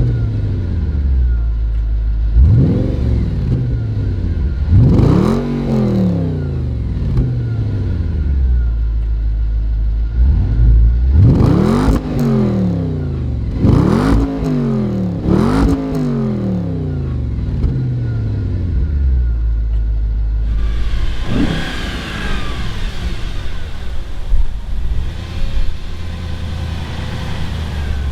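Audi RS4 B7's 4.2-litre naturally aspirated V8 on its stock exhaust, blipped about six times from idle, each rev climbing and falling back. Three come in quick succession in the middle, and a short one follows later.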